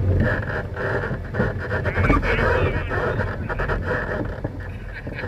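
Race ATV engine running as the machine bounces along a rough wooded trail, with frequent knocks and rattles from the bumps. The engine eases off and the sound gets quieter near the end.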